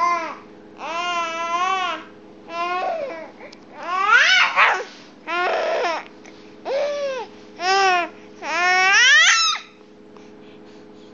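Five-month-old baby fussing: a string of about eight short, high-pitched whiny cries, several sliding up in pitch, that stop about nine and a half seconds in. A faint steady hum underneath.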